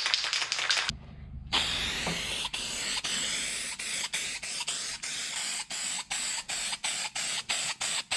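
Aerosol can of zinc-rich cold galvanising paint: the mixing ball rattles as the can is shaken for about the first second, then the spray hisses steadily as the paint goes on, with short regular ticks through the hiss about three times a second.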